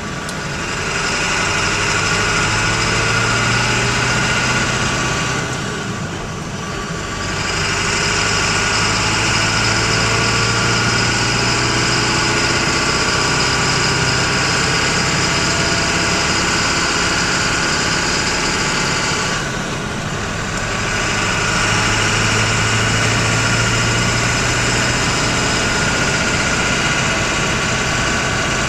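Ford F-350's 7.3 L Powerstroke turbodiesel V8 pulling steadily, heard inside the cab while driving. Its sound dips briefly twice, where the throttle is lifted and the 5-speed manual is floated into the next gear without the clutch, then builds again.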